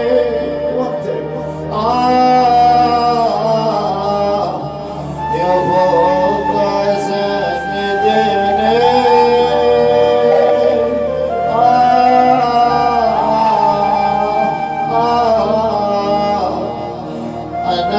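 A man's voice chanting a Shia mourning lament (nai) in long, melismatic phrases with held, wavering notes.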